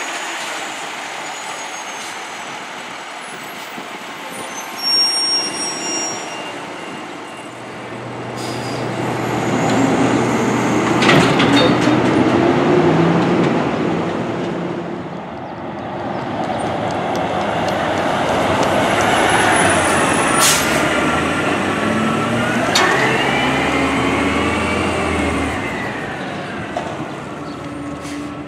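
Diesel garbage trucks running as they drive past and pull into the yard, the engine sound swelling twice as trucks come by. Short air-brake hisses come about eleven and twenty seconds in, and a whine wavers up and down in pitch through the second half.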